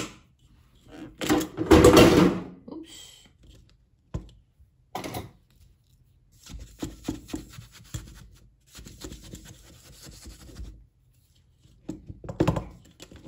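Metal springform cake pan being opened: a sharp click, a louder scraping clatter about two seconds in, then several seconds of scratching as the side ring is worked loose from the hot cake.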